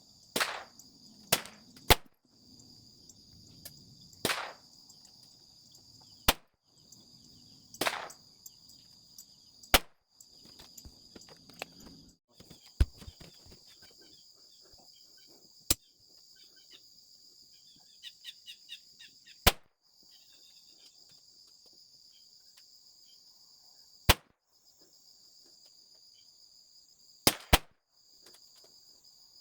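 Smith & Wesson Victory .22LR pistol, fitted with a Tandemkross Spitfire barrel and muzzle brake, firing single sharp shots, about a dozen spaced irregularly from under a second to several seconds apart. A steady high insect buzz, like crickets, fills the gaps between the shots.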